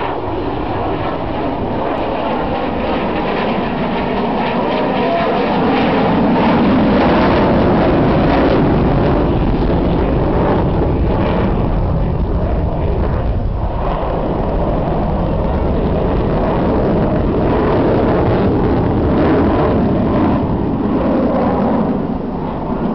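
Loud, continuous jet engine noise from an aerobatic display aircraft flying overhead, swelling a little a few seconds in and then holding steady.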